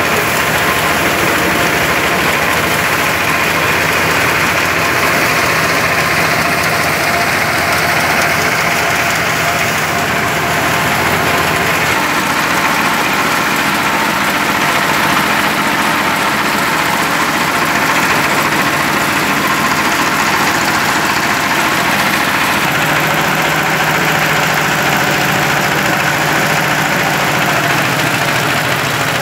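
A small diesel engine driving a paddy thresher runs steadily at working speed, with the threshing drum whirring as rice stalks are fed into it.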